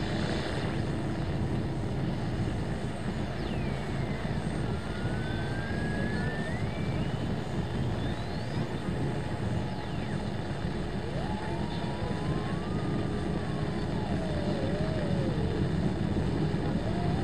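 Steady low vehicle drone of engine and road noise, with thin faint tones that slowly slide up and down in pitch over it.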